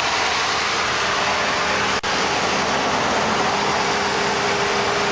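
The 5.7-litre Hemi V8 of a 2009 Dodge Ram idling steadily, heard from low at the front of the truck under a loud even hiss. The sound drops out for an instant about two seconds in.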